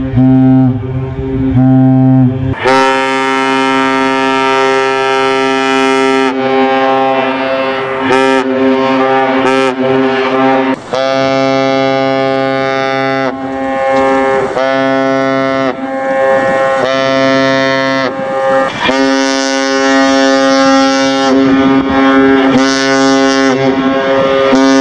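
Synthesized cargo-ship horns, a chord of several steady tones sounding together, blown in a series of blasts. Short blasts alternate with several long ones lasting a few seconds each, with a slight sag in pitch as each blast starts and stops.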